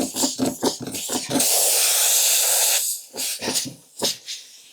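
Spiral rasp tool being worked through a puncture hole in a tubeless car tyre: quick rubbery scraping strokes, then a steady hiss lasting about a second and a half, then a few separate, quieter strokes. The rasping clears and widens the hole so it will take a plug.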